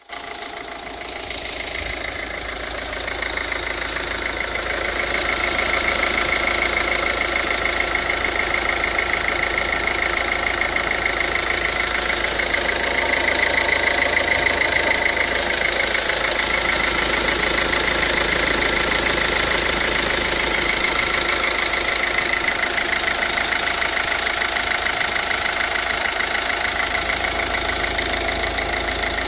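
Volvo V50 engine idling cold with a fast, fine ticking and a higher noise that swells and fades in slow waves. This wave-like noise appears only when the engine is cold, and the owner cannot identify its cause.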